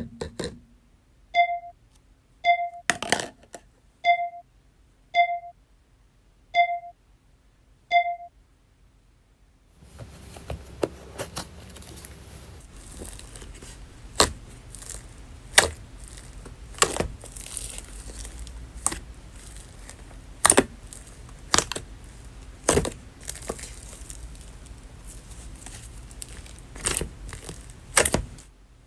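A short electronic blip sound effect repeats about once every second and a half for the first eight seconds. Then, from about ten seconds in, slime is squished and poked by hand, with a crinkling sound and many sharp crackles and pops.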